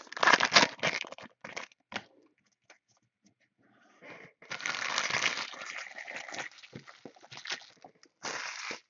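Plastic wrapping on trading card boxes and packs being torn open and crinkled by hand, in crackly spells with a short pause in between and one more brief burst near the end.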